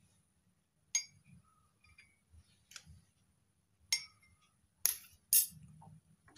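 Kitchenware being handled: four light, ringing clinks about a second apart, then two sharper, louder knocks near the end.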